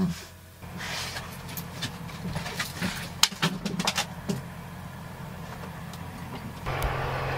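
Clicks and knocks of the RV's rear door latch and handle being worked as the door is opened. About two-thirds of the way in, a steady low engine hum from the parked trucks outside comes in and holds.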